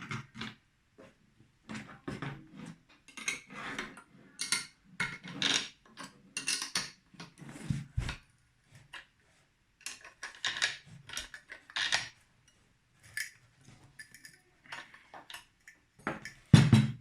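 Irregular metallic clicks, clinks and knocks of angle grinder parts being handled as the wheel guard is swapped for a larger one, with the loudest knock near the end.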